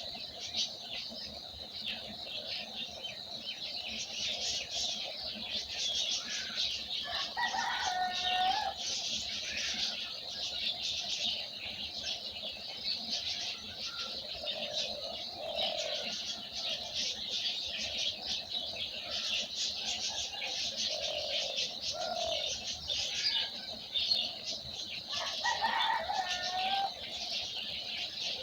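A dense, continuous chorus of small birds chirping and twittering. Twice a longer, lower call sounds and falls in pitch, and there are scattered soft low calls between.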